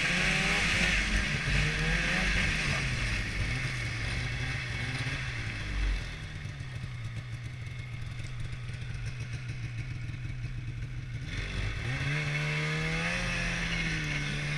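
Polaris Switchback Assault 800 snowmobile's two-stroke twin engine running on the trail, the throttle rising and falling. It eases back to a lower, quieter pace a little under halfway through, then picks up again near the end.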